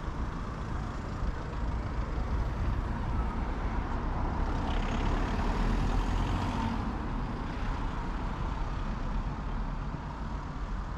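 Road traffic on a city street: a steady rumble of vehicles, with one passing close and growing loudest about halfway through, a hiss rising over it for a couple of seconds before it fades.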